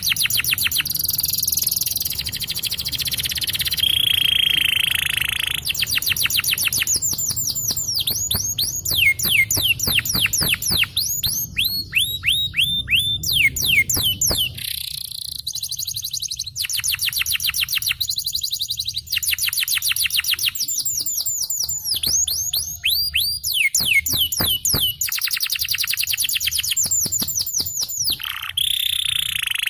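Domestic canary singing a long, continuous song of fast trills, rapid runs of repeated down-sweeping notes alternating with held buzzy rolls.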